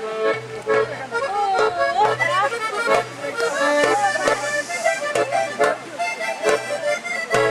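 Accordion playing a lively folk dance tune: a quick melody over a bass note that repeats in an even pattern, with sharp percussive taps along the beat.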